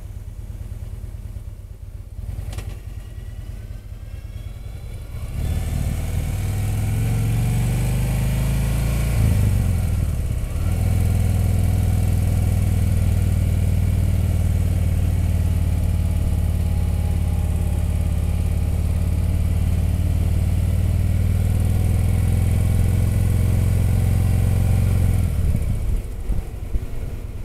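Motorcycle engine heard from the rider's seat. It is low at first, then pulls harder with a rising pitch from about five seconds in, dips briefly around ten seconds, and holds a steady pull before easing off near the end.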